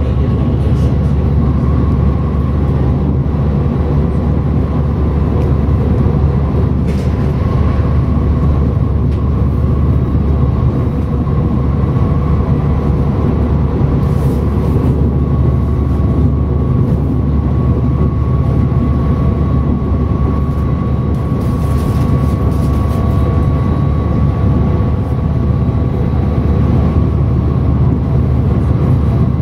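Siemens Mireo class 463 electric train running, heard on board: a steady rumble of wheels and running gear with a steady high whine over it.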